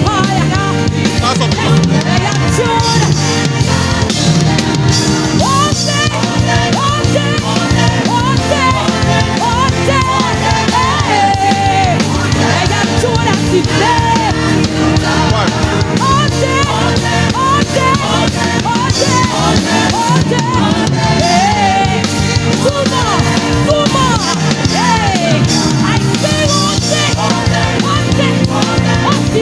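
Live praise-and-worship band music with drum kit and a strong bass line, and a lead melody sliding in short phrases above it.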